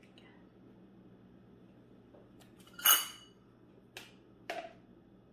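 A spoon knocking and clinking against a blender jar with the blended cream mixture in it: one loud clink with a short ring about three seconds in, then two lighter knocks about a second later.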